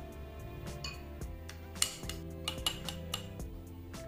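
A metal spoon clinking against a glass bowl and a drinking glass while whipped coffee is scooped, with a few sharp clinks in the second half, over background music.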